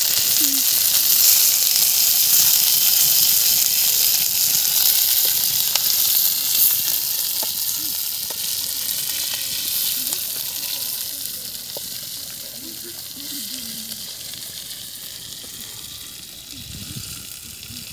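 Whole fish frying in hot oil in a wok, a steady sizzle with a few sharp pops that grows fainter through the second half.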